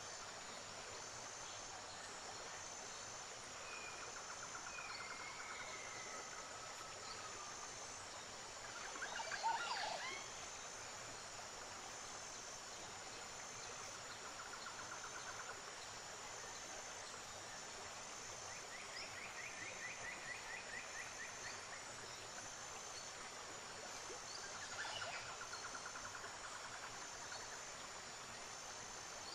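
Steady rush of river water with birds calling over it: several short trills, and one louder, sharper call about nine seconds in. A faint, evenly pulsing high insect call runs underneath.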